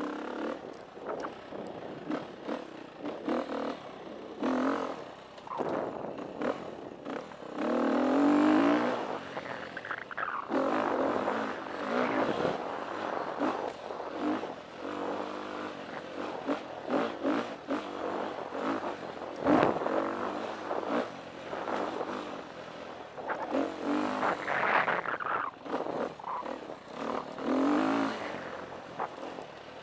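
KTM 350 EXC's four-stroke single-cylinder engine revving up and down repeatedly as the dirt bike is ridden hard over rough trail, with occasional knocks and rattles from the bike over the ground.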